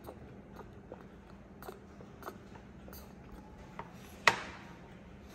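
A drinking glass set down on a glass tabletop: one sharp clink with a short ring about four seconds in, among faint scattered ticks and taps.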